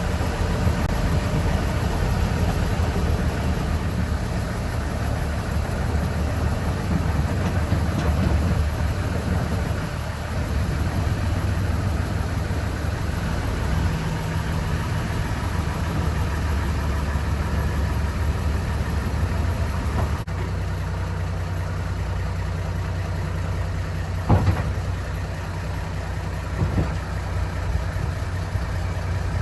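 Engine of a 1961 Borgward B555-K short-nose tipper truck running steadily at idle, with two short knocks near the end.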